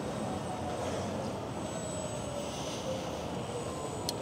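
Steady rumble of street traffic, city buses running alongside among it, with a faint wavering engine tone and a brief click near the end.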